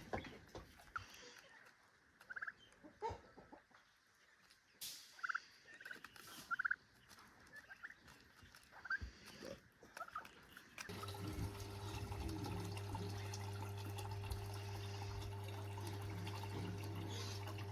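Ducklings peeping in scattered short, high chirps with a few clicks. About eleven seconds in, a steady machine hum with a low drone starts suddenly and becomes the loudest sound.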